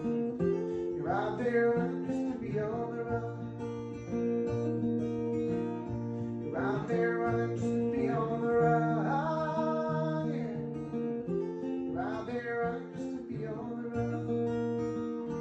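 Acoustic guitar playing an instrumental passage of the song: held chords with a melody line above them that slides in pitch, returning about every five seconds.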